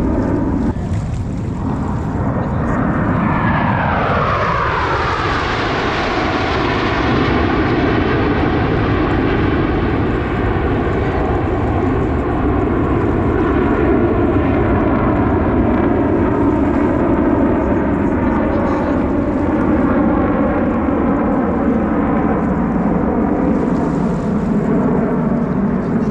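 Blue Angels F/A-18 Super Hornet jet flying past: a loud jet roar whose pitch sweeps down a few seconds in as it passes, then a steady roar that carries on as it moves away.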